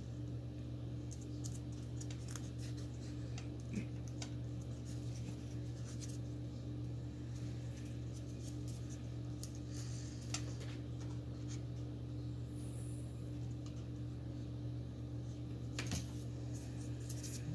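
Stiff paper petals rustling and crinkling as a handmade paper rose is rolled and pressed into shape by hand, in small scattered crackles over a steady low hum.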